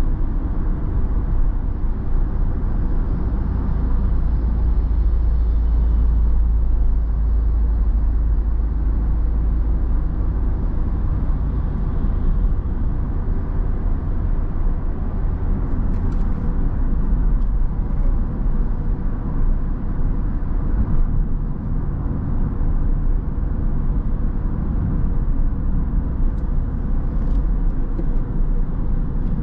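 Interior cabin noise of a 2011 Škoda Octavia II with a 1.6 MPI petrol four-cylinder, driving at a steady pace: a continuous low rumble of engine and tyre noise heard from the driver's seat.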